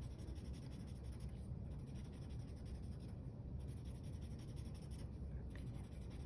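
Felt-tip marker scribbling back and forth on paper, colouring in a shape, with short pauses between stretches of strokes, over a low steady hum.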